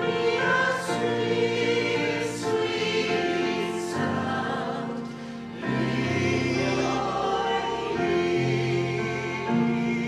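Church choir singing a slow worship song in long held notes, accompanied by an electric keyboard. The sound dips about halfway through and swells back up.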